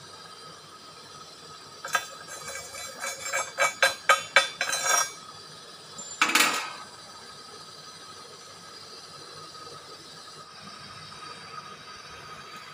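Clinking and knocking of steel: a quick run of metallic strikes for about three seconds, then one louder clank about a second later.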